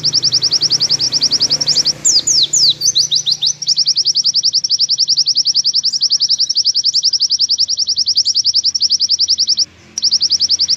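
Pleci (white-eye) song: a long, fast, high trill of evenly repeated notes, about a dozen a second, the 'nembak panjang' long-shot song used for training other pleci. About two seconds in it breaks into a run of quick down-slurred whistles, and near the end it stops briefly before the trill resumes.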